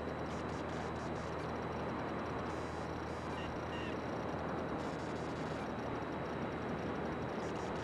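Cessna 182 Skylane's six-cylinder piston engine and propeller running at a steady cruise-power drone in flight, mixed with a broad rush of airflow noise.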